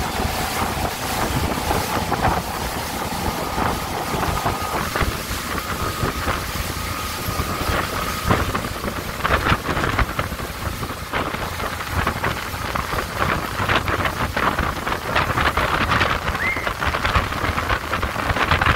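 Motorboat running at speed, with wind buffeting the microphone and the rush of spray from the wake. A faint steady whine fades out about eight seconds in, and the wind gusts grow rougher after that.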